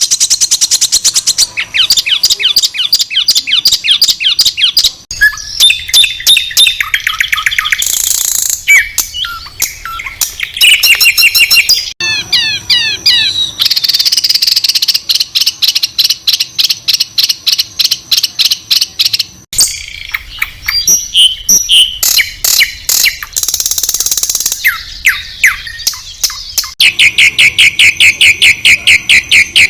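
Spliced recordings of songbirds used as masteran training song: loud, high-pitched rapid trills and fast runs of repeated harsh notes ('tembakan kasar'). The recording changes abruptly about 12 and 19 seconds in.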